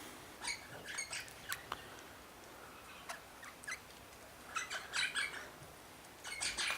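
Small birds giving short, sharp chirps and chattering calls in scattered clusters a couple of seconds apart.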